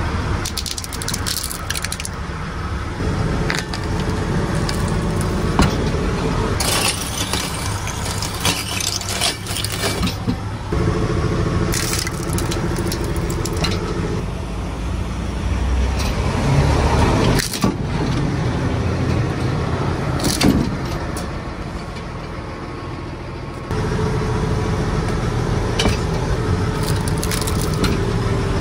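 Steel railway wheel rolling slowly along the rail, crushing plastic razors, a toothbrush and mobile phones laid on it. Several sharp cracks and crunches rise over a steady engine rumble.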